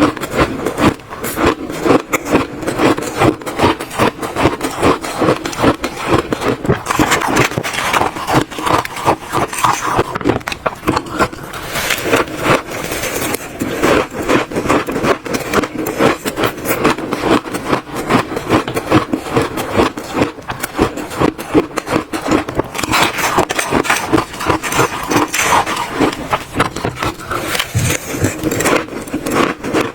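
Close-miked crunching and chewing of frozen shaved ice, a rapid, unbroken run of crisp crunches.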